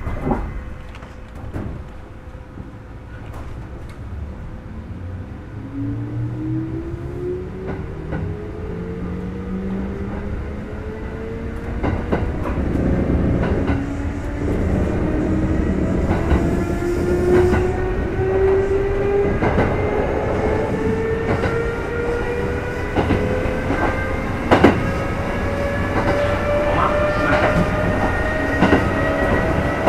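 Kintetsu 2430-series electric train heard from inside motor car Mo 2438, accelerating: the traction motor and gear whine starts low about five seconds in and climbs steadily in pitch as the train gathers speed. Under it is a rolling rumble with occasional clicks as the wheels cross rail joints.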